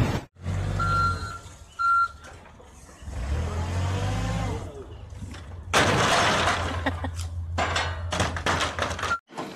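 A Yale forklift's engine running, with two short beeps early on; about six seconds in, a tall stack of wooden pallets topples off the forks and crashes down, clattering for a few seconds.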